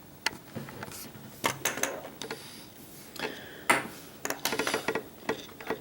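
Small metal lock parts (pins, springs and tools from the gutted lock) being handled, giving a string of irregular light clicks and taps.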